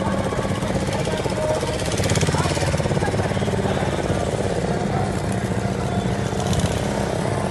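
A small engine running steadily with a fast, even pulsing.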